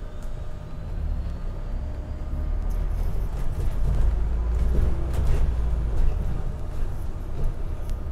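Alexander Dennis Enviro400 MMC double-decker bus pulling away from a stop, heard from inside the passenger cabin: a low engine and drivetrain rumble builds as it accelerates, with a few light clicks.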